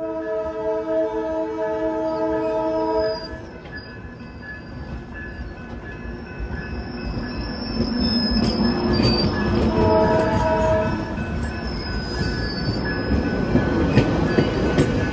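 Coaster commuter train passing close by at a grade crossing. A multi-note train horn sounds for about three seconds at the start and once more, shorter, about ten seconds in. Under it the bi-level cars rumble past, getting louder from the middle on, with a high wheel squeal and a few sharp wheel clicks near the end.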